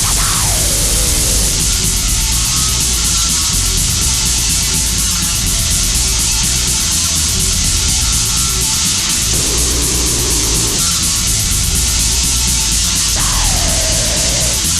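Loud, harsh heavy-metal noise music: a dense, unbroken wall of distorted sound at a constant level, with a falling squeal near the end.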